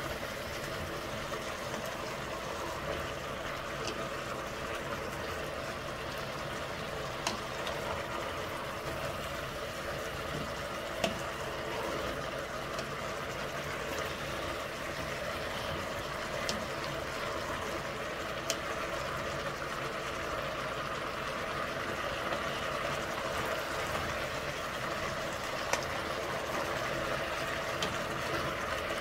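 Potatoes and carrots frying in oil in a pot, with a steady sizzle. A few sharp clicks come now and then, from a utensil knocking the pot.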